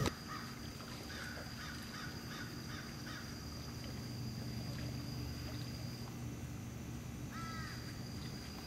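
Quiet outdoor lakeshore ambience: a steady low hum and a thin, steady high tone. Faint scattered calls come between one and three seconds in, and one short arched call, rising then falling, about seven and a half seconds in.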